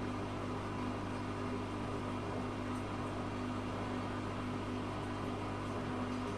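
Zanussi FA623 front-loading washing machine running with a steady, even mechanical hum.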